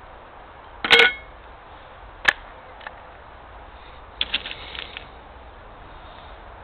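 Metallic handling sounds from a tin of airgun pellets: a loud ringing clank about a second in, a sharp click a little over a second later, then a short run of tinny clicks and rattles.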